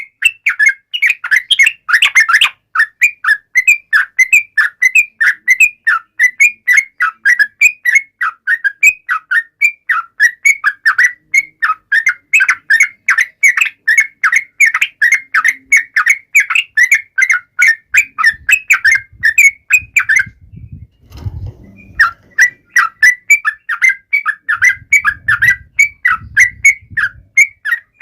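Yellow-vented bulbul (trucukan) singing in full voice: a fast, unbroken string of short, chirping notes with one pause of about a second and a half near the end. Low rumbling noise comes in under the song around that pause and again shortly after.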